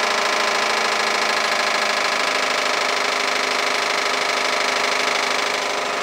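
1952 Ferguson TO30 tractor's four-cylinder engine running steadily, driving a PTO-powered Danuser wood chipper. The sound eases slightly near the end.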